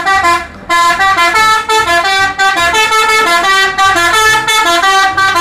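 Tour bus's multi-tone musical air horn (a 'telolet' horn) playing a quick stepping tune of several notes, with a brief break about half a second in.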